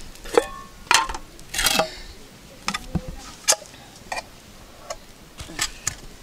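Scattered light clinks and knocks of metal pots and enamel dishes being handled, about ten short sharp strikes, some ringing briefly.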